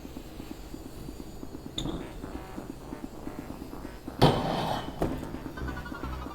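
Metal bike parts and tools clinking and knocking during a BMX bike build. There is a small metallic ping about two seconds in and one loud metal clank with a brief ring about four seconds in.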